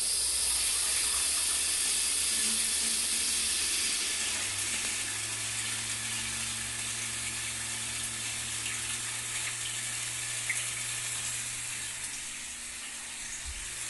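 Tap water rushing steadily through a shower hose into a 12 V, 15 W mini hydroelectric turbine-generator, a constant hiss. About four seconds in, a low steady hum joins it as the little generator spins.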